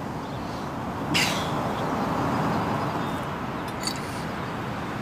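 Steady outdoor background noise, with a short hiss about a second in and a couple of faint clicks near the end.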